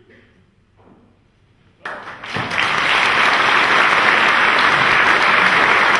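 Audience applause breaking out suddenly about two seconds in after a moment of near quiet, swelling within half a second to steady, dense clapping.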